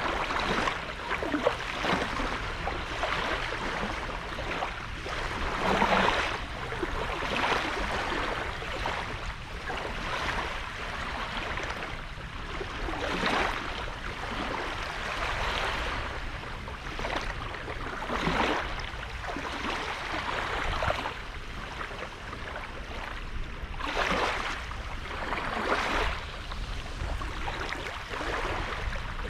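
Sea waves washing onto a beach, each wash rising and falling every two to three seconds, over a steady low rumble.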